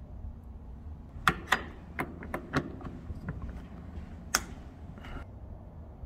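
Sharp plastic clicks and taps from a Nest Doorbell (battery) being pressed and snapped onto its wall mount bracket: a quick cluster of clicks from about a second in, and one more loud click just after four seconds.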